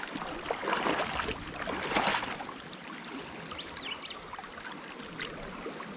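Shallow river rushing over a rocky rapid, a steady noise of running water, louder and more splashy for the first two seconds, then settling lower.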